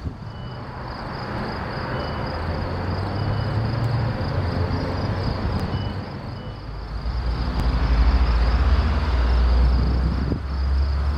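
Twin-engine jet airliner passing overhead. Its engine noise is a hiss that swells and then a deep rumble, loudest in the second half.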